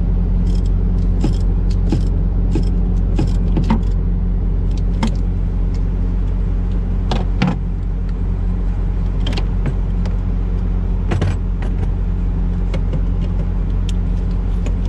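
Irregular metallic clicks and clinks of hands and tools working on the fan clutch solenoid's air fittings, a sharper knock about seven and a half seconds in, over a steady low engine hum.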